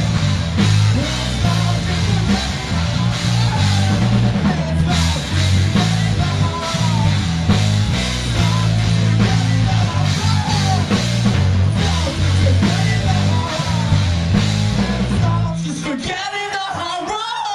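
Live rock band playing electric guitar and drum kit with sung vocals, loud and heavy; the song stops near the end and the audience cheers and whoops.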